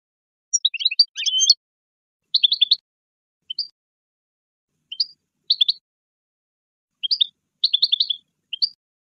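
European goldfinch singing: short bursts of quick, high twittering notes broken by brief silent pauses.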